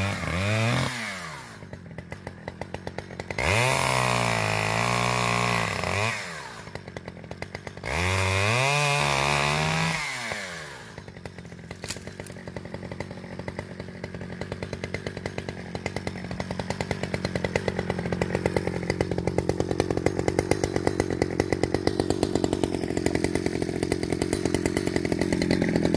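Stihl 009 two-stroke chainsaw cutting a small dead snag tree. The engine runs up to full throttle three times, each burst rising in pitch and falling away, and drops back to a pulsing idle between them. From about eleven seconds on it idles steadily.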